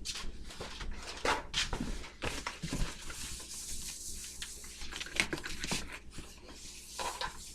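Kitchen clatter: scattered knocks and clicks of dishes and utensils being handled and wiped down, with a stretch of hiss in the middle.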